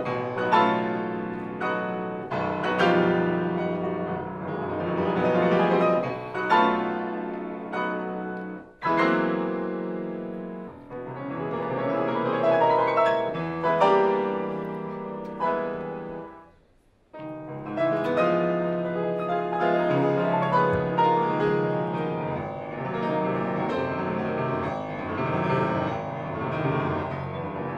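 Solo piano playing a classical piece, with a brief pause a little past the middle before the playing resumes.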